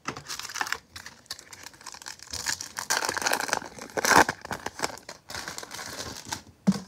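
Foil wrapper of a Topps baseball card pack crinkling as it is torn open and pulled apart, loudest about three and four seconds in.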